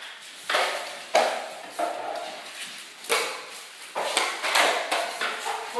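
Drywall knife scraping joint compound off a mud pan and onto the wall, in about five short strokes spaced roughly a second apart.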